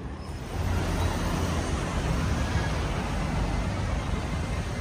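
Road traffic: cars driving past close by, a steady rush of tyres and engines with a low rumble, which swells about half a second in.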